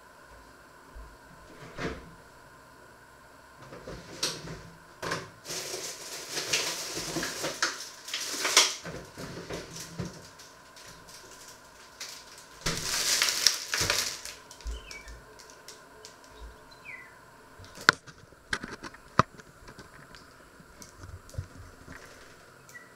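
Kitchen handling noises: rustling in two stretches, the longer about four seconds, then scattered sharp clicks and knocks as things are set down on a wooden cutting board.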